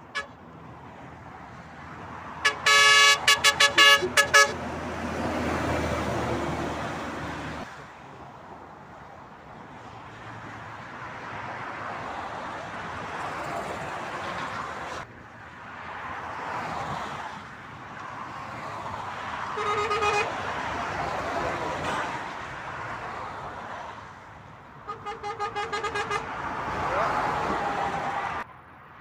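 Motorway traffic passing, with vehicle horns sounding: a rapid run of short toots a few seconds in, a single short blast about two-thirds of the way through, and another quick run of toots near the end.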